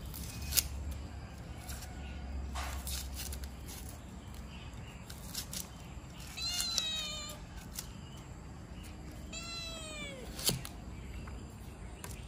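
A kitten meowing twice, each meow a single call that falls in pitch, the first about six and a half seconds in and the second near ten seconds. A few sharp knocks come in between, the loudest about half a second in and just after the second meow.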